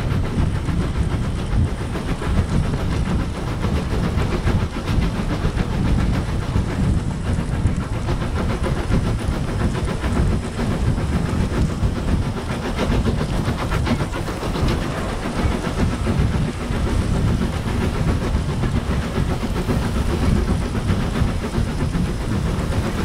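Model railway locomotive running along the track, heard close up: a steady rumbling rattle from its motor and wheels, with rapid fine clicking over the rails.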